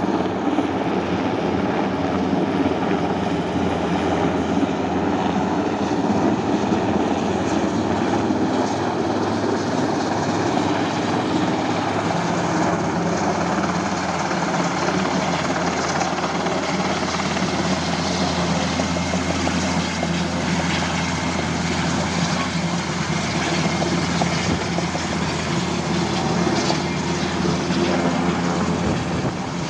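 Large firefighting helicopter hovering low, its rotor and turbine engines running steadily and loud while its underslung bucket fills with water.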